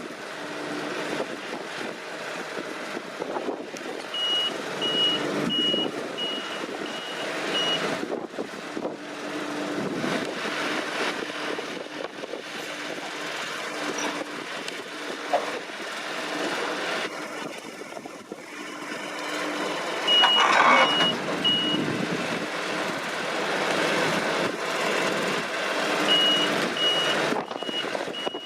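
Deutz-Fahr C9306TS combine harvester running under load, with a reversing alarm beeping a little under twice a second in three spells: early on, about two-thirds through, and near the end.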